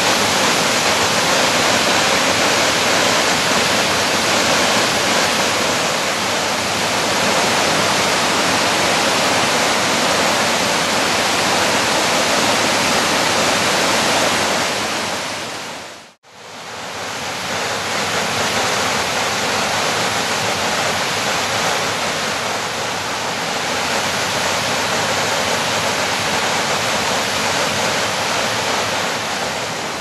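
Waterfall in full flow pouring over a weir, a steady, loud rush of falling water. About halfway through it fades out to silence and fades back in as the rush of water at another spot on the river.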